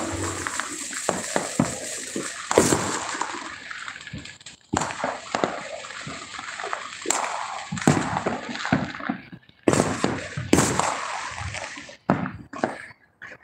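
Fireworks going off: a run of sharp bangs with crackling between them, several bangs followed by an echoing tail.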